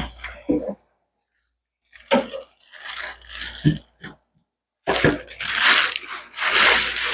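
Crunching and rustling of packaging as a boxed welding machine is unpacked: several short handling noises, then a longer continuous crunching from about five seconds in.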